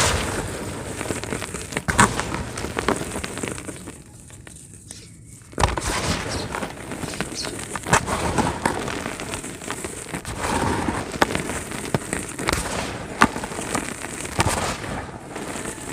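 Dry cement crumbling, a continuous crackle with sharp snaps. It eases off about four seconds in and starts again suddenly just before six seconds.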